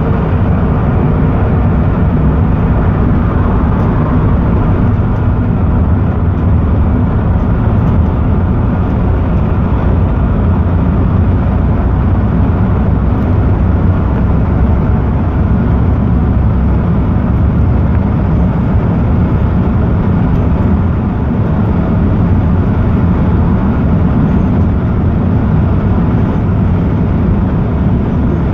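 Cabin noise of a Volvo B11R coach driving at highway speed: its six-cylinder diesel engine drones steadily under a low road rumble, with no notable change in pitch or level.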